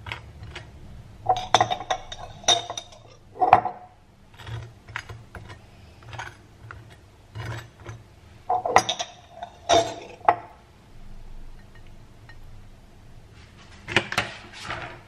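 Table knife spreading jam on toast, scraping and clinking against a ceramic plate in irregular clusters of short strokes.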